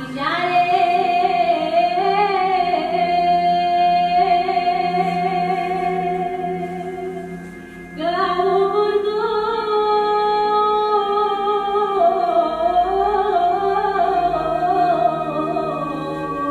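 Recorded Romani singing played back: one voice sings long, held, wavering phrases over a steady low drone. The first line fades out about seven and a half seconds in, and a second line starts half a second later.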